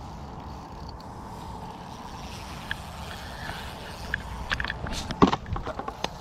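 Steady low rumble of wind on the microphone, then a quick run of splashes and knocks from about four and a half to six seconds in as a hooked carp is brought to the landing net.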